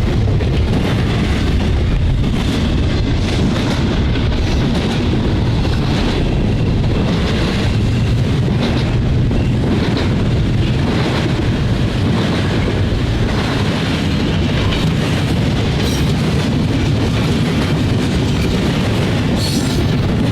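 Intermodal freight train rolling past at track speed: a steady heavy rumble of steel wheels on rail with irregular clacks over the rail joints.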